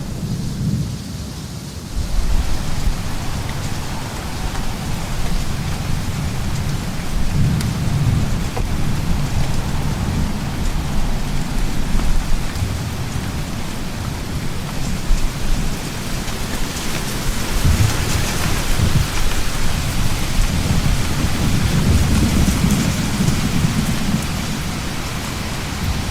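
Thunderstorm: steady rain hiss under deep rolling thunder that swells and fades several times. The rain grows much heavier about two seconds in.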